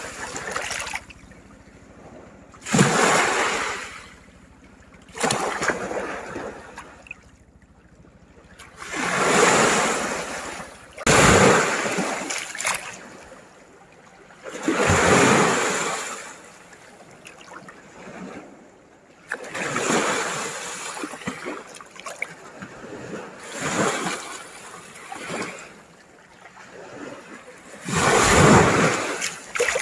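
Sea waves breaking on the shore: a loud wash of surf rises and falls every few seconds, with a quieter hiss of water between the surges.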